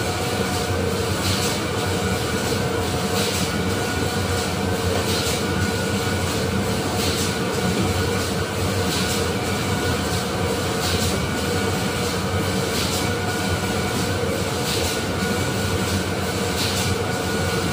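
Factory machinery running steadily: a continuous mechanical rumble with a steady hum and a faint regular pulse about every two seconds.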